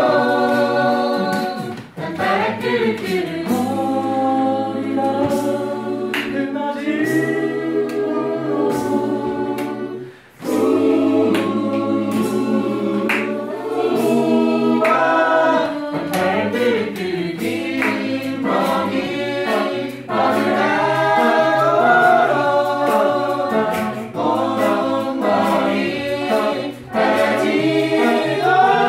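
Mixed choir of men and women singing a pop-song arrangement together in parts, with short pauses for breath about 2 and 10 seconds in.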